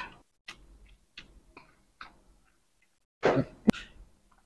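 Close-miked eating sounds: faint wet chewing ticks, then about three seconds in a loud crisp crunch as a bunch of fresh leafy greens is bitten into.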